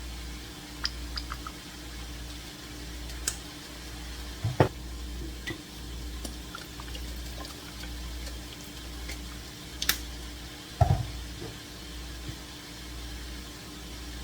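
Liquid seasonings being poured into a pan of egg roll filling, with a few light clinks and knocks of bottles and utensils over a steady low hum.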